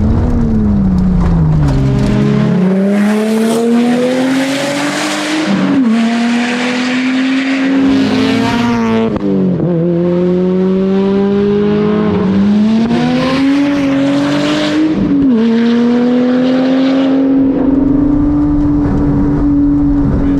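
2016 Lotus Exige S's supercharged V6 engine under hard driving: the note falls as the car slows early on, then climbs and drops sharply three times as it is shifted up through the gears, and holds steady near the end.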